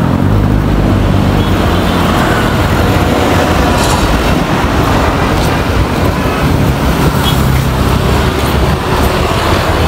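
Steady, loud road traffic noise: vehicle engines running and tyres on the road.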